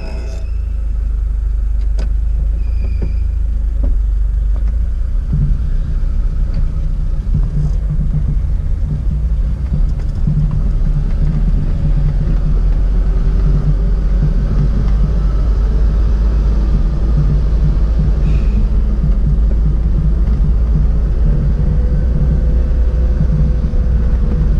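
Mitsubishi Lancer EX (A172) engine and road noise heard inside the cabin while driving slowly: a steady low rumble that gets heavier about five seconds in as the car gets under way, with a faint engine pitch rising and falling.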